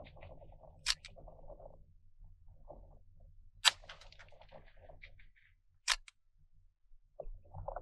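Three shots from a CZ 515 .22 Magnum rifle, about a second in, at about three and a half seconds (the loudest) and near six seconds, with fainter handling noise between them as the straight-pull action is worked.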